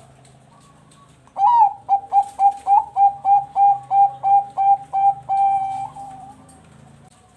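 Zebra dove (Bangkok perkutut) singing. About a second and a half in, a loud opening note is followed by a quick, even run of about a dozen short, clipped coos, roughly three or four a second. The phrase ends in a longer held coo that fades away.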